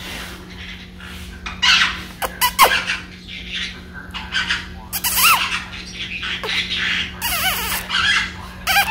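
Green-cheeked conure chattering and squawking in short bursts, with chirps that glide up and down in pitch and a run of quick wavering jabber near the end.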